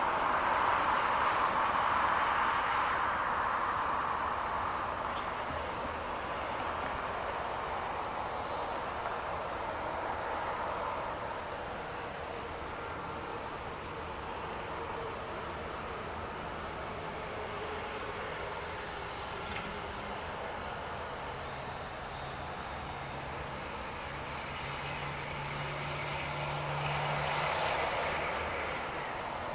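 Crickets and other insects chirping steadily in a high, evenly pulsing trill. A rushing noise fades over the first few seconds, and a low engine hum grows near the end.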